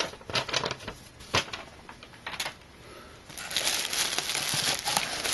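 Clear plastic packing wrap being pulled from a cardboard box: a few scattered crackles at first, then dense, continuous crinkling and rustling from about three seconds in.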